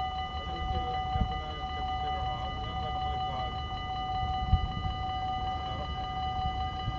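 Dutch level-crossing warning bell ringing steadily while the barriers are down, signalling an approaching train, over a low uneven rumble.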